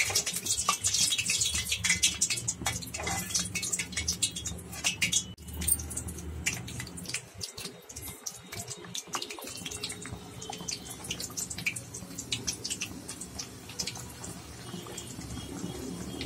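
Bhatura deep-frying in hot oil in a kadhai: the oil sizzles with dense crackling pops, loudest in the first few seconds, then settling into a steadier crackle.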